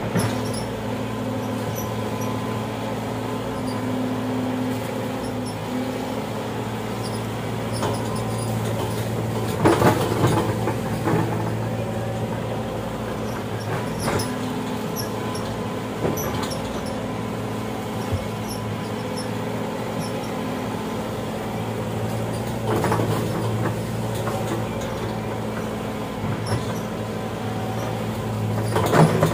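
Excavator diesel engine running at a steady idle, with a few short metallic knocks, the loudest about ten seconds in and just before the end.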